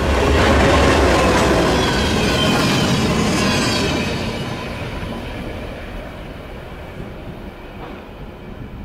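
Mohawk, Adirondack & Northern diesel locomotive 2455 and its freight cars passing close by: the engine rumbles and the wheels run on the rails, with a thin high wheel squeal between about two and four seconds in. After about four seconds the sound fades steadily as the train moves away.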